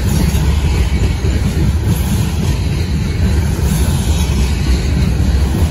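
Freight train's steel-wheeled open-top gondola cars rolling slowly past on the rails, a steady low rumble without letup.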